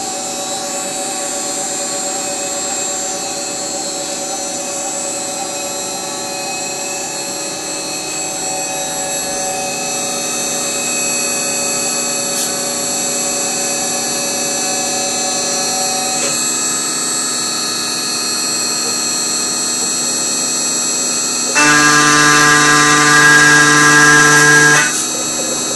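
CNC router spindle running with a steady high whine while the machine moves into position. About three-quarters of the way through, the end mill bites into the aluminium block to face it, and a louder, evenly pitched cutting tone takes over, breaks off briefly near the end, then starts again.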